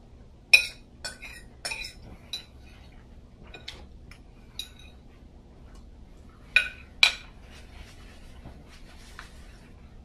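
A metal fork clinking and scraping against a plate in a string of sharp clinks, the loudest about half a second in and a close pair near seven seconds.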